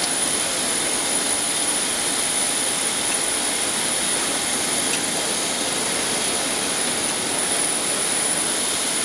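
Jet aircraft turbine running steadily: an even rushing noise topped by a high, thin whine.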